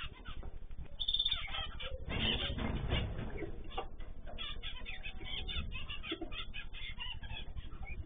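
Aviary of small cage birds (zebra finches, canaries, goldfinches and cockatiels) chirping and calling in many short, overlapping notes, with a louder burst of noise about two seconds in.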